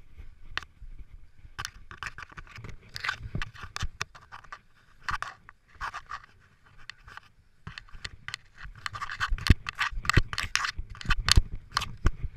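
Irregular scraping, scuffing and knocking of a body-worn GoPro against grass, soil and clothing as the runner scrambles over the ground on hands and knees, the knocks getting busier and louder in the last few seconds.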